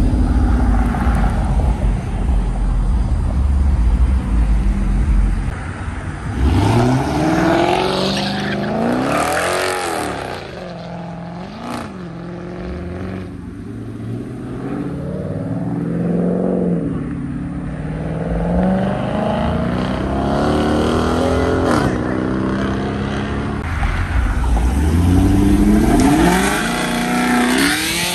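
Muscle car engines revving hard and accelerating as cars pull away, the pitch climbing and dropping in several rev sweeps, strongest about seven to ten seconds in and again near the end.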